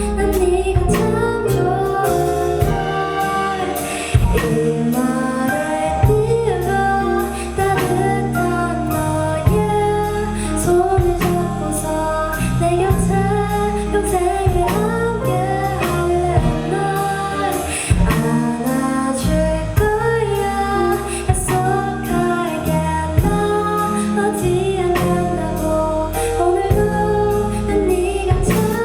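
Live band music: a female singer's voice over a full band, with drum hits at a steady beat and a sustained bass line, in the closing section of a pop ballad.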